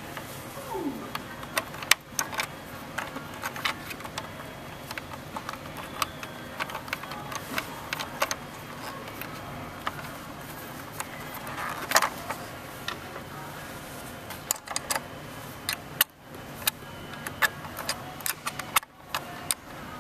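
Scattered small clicks, taps and rattles of plastic parts being handled and pressed together as a bottle filler's replacement nozzle and its tubing are fitted in place, with louder knocks about two seconds in and again near the middle.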